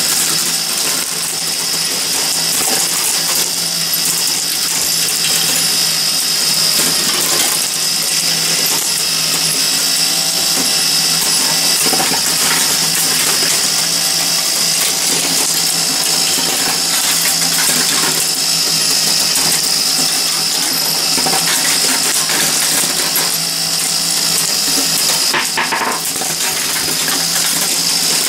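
Meccano marble machine running: a steady, dense metallic clatter of the motor-driven shafts and linkages, with glass marbles clicking against the steel strips and each other, over a steady low hum.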